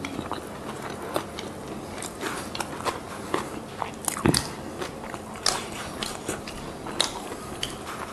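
People chewing and biting into Burger King Whopper burgers close to a clip-on microphone: moist chewing with irregular crunchy clicks. One louder thud about four seconds in.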